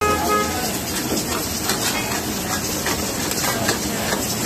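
Chicken karahi sizzling in a wok over a gas flame, with a ladle scraping and clicking against the pan as it is stirred.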